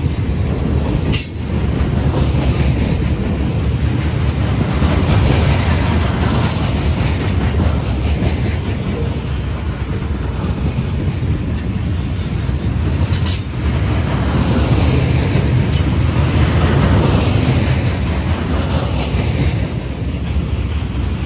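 A train rolling past close by: a loud, steady rumble and rattle of its wheels on the rails.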